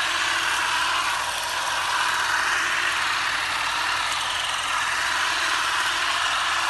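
Battery-powered electric olive harvester running steadily, making a loud, even mechanical noise as it shakes olives down from the tree.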